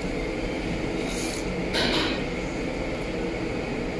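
A person slurping Xinjiang banmian noodles: two short, hissy slurps, about a second in and just before two seconds in, the second louder, over a steady background hum.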